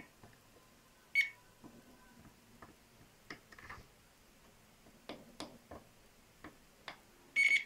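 Digital multimeter in continuity (buzzer) mode giving two short, high beeps, about a second in and again near the end, as the probe tips touch the pins; each beep is the sign of a continuity path, here between a MOSFET gate and the VRM controller chip. Faint clicks of the probe tips tapping the board come between them.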